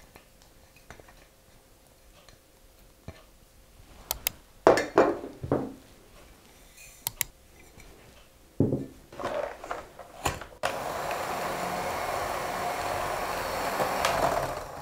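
Clinks and knocks of a spatula and glass dishes against a glass mixing bowl as butter and sugar go in. About ten and a half seconds in, an electric hand mixer starts suddenly and runs steadily, its beaters creaming butter and sugar.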